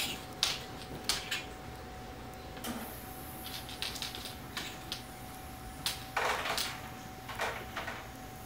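Two cats play-wrestling on a carpet: irregular soft scuffles, taps and rustles of paws and bodies, with a longer noisy scuffle about six seconds in. A faint steady tone runs underneath.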